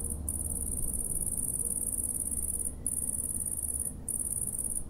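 Male cricket stridulating, rubbing one forewing against the other: a shrill, very high trill in long stretches broken by short pauses, the song used to mark territory and attract females.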